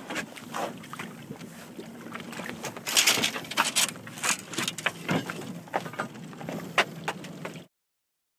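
Sea water splashing and slapping around a boat and a bobbing trap buoy, in irregular splashes with a few sharper ones about three seconds in. The sound cuts off suddenly near the end.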